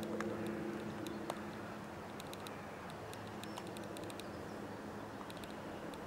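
Faint ambient sound of a pebble shore: light scattered clicks and trickling, as of small ripples lapping on shingle, over a steady low hum.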